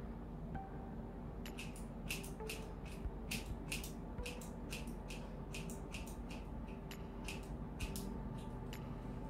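Scissors snipping through hair: a quick series of crisp snips, about two or three a second, starting about a second and a half in.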